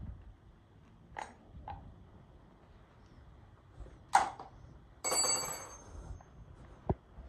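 Scattered light clicks and knocks of metal objects being handled, with a sharp knock about four seconds in and, a second later, a ringing metallic clang that dies away within a second.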